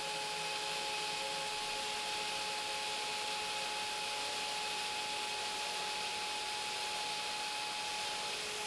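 CNC router spindle running steadily with a constant whine over a steady hiss, a small end mill rest-machining sharp corners.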